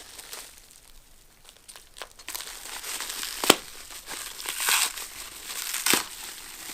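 Packaging being handled, crinkling and rustling, with two sharp knocks: one about halfway through and a second near the end.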